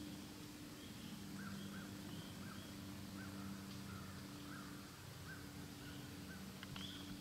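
A bird calling repeatedly in the woods: short chirps about twice a second, with a few higher thin notes, over a faint steady low hum.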